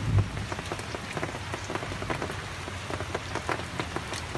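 Battered bananas deep-frying in a large wok of hot oil: a dense, steady crackling sizzle, mixed with rain falling on the street. There is a dull knock just at the start.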